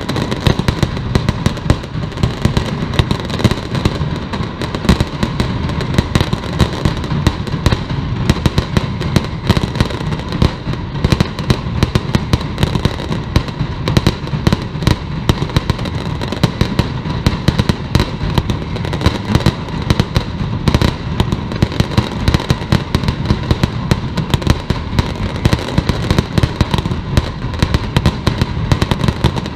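Mascletà: gunpowder firecrackers going off in a dense, unbroken rapid string of bangs, with no pause.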